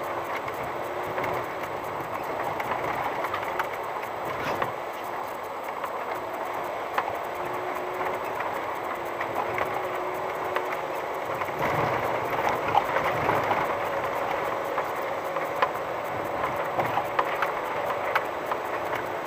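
VW T5 California van driving slowly on a rough unpaved dirt track: tyres on gravel with constant small rattles and knocks, and a faint steady engine tone underneath. The rattling gets busier a little past halfway.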